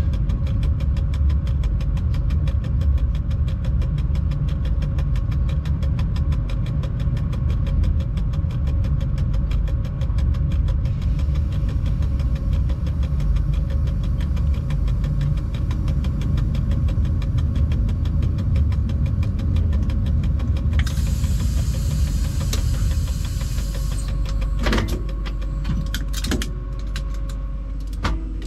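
Locomotive cab noise: a steady low rumble of the running locomotive with a constant two-note hum. About twenty seconds in there is a hiss lasting a few seconds, then a couple of sharp knocks.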